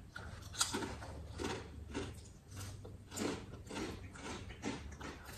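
Close-up eating sounds: chewing and slurping of spicy noodles, a run of short, sharp mouth noises about twice a second over a low steady hum.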